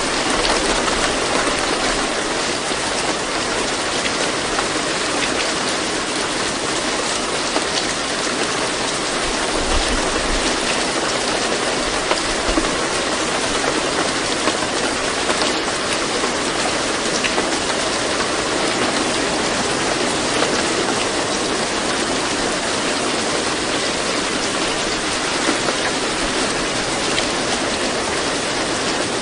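Steady recorded rain: an even, unbroken hiss of falling rain.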